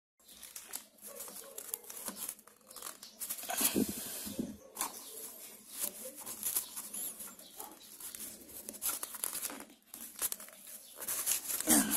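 Hands working a rubber ball-joint dust boot and wiping it with a cloth rag: irregular rustling and rubbing, with scattered small clicks and scrapes, loudest about four seconds in.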